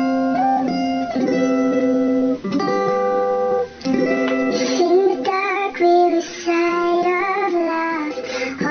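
Background music with plucked guitar, and a singing voice coming in about halfway through.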